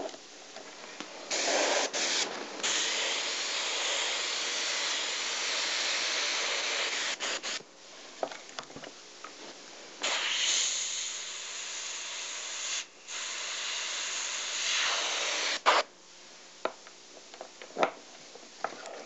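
Airbrush spraying paint in long, steady hisses: two main passes of about six seconds each, cut briefly where the trigger is let off. A few small clicks fall in the pauses between passes.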